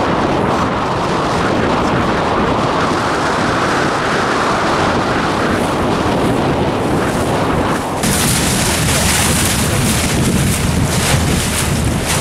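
Strong wind buffeting the microphone over choppy water: a loud, steady rushing noise. About eight seconds in it changes abruptly to a brighter, hissier rush.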